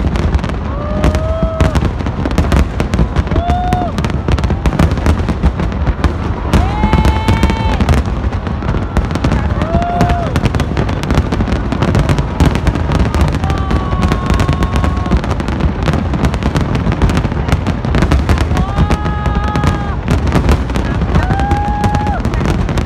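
Fireworks going off continuously: a dense stream of bangs and crackling over a low rumble. Several short, steady pitched tones sound over it.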